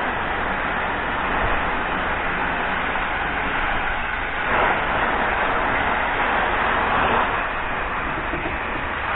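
High-pressure water jet from a washer lance blasting fouling off the bottom of a boat's hull: a steady, loud hiss that swells briefly about halfway through and again later as the spray moves across the hull.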